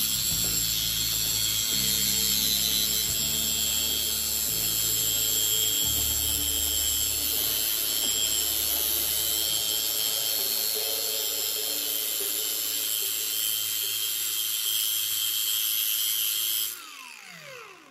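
Cordless angle grinder running with a steady high whine while a cordless drill spins a screw against the disc, grinding the screw's tip to a point with a gritty hiss. Near the end the tools are switched off and spin down with a falling pitch.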